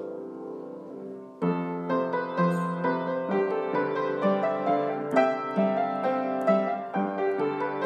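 Background piano music: a held chord dies away, then a melody of separate notes starts about a second and a half in and carries on.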